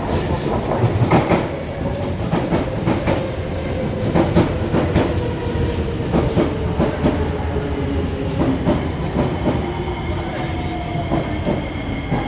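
SMRT metro train running along the platform, its wheels clattering and knocking, with a faint electric whine that slowly falls in pitch. Higher steady tones come in about halfway through.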